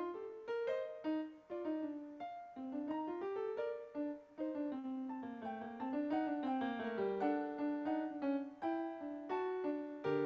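Piano music: a run of single notes and chords, with no voice over it.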